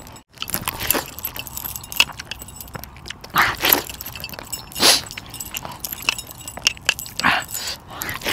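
Metal bracelets and chains jangling and steel plates clinking lightly as food is eaten by hand, with a few louder short rustling sounds.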